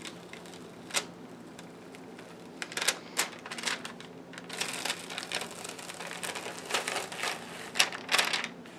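Clear plastic transfer film being peeled slowly off a freshly ironed-on rhinestone transfer on satin fabric, crackling and ticking irregularly as the sticky film pulls away from the stones, busiest from about halfway through.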